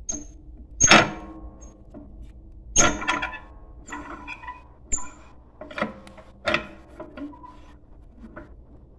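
Cast-iron parts of a Harman Mark I coal stove's lower door and round draft control being handled. There are a series of ringing metal clanks and scrapes: the loudest about a second in, another about three seconds in, and smaller knocks until near the end.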